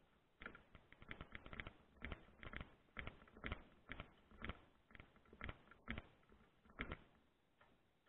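Screwdriver working the fasteners on a microwave radio unit's metal housing as it is mounted to the dish: a run of light, irregular clicks and taps, about two a second, dying away near the end.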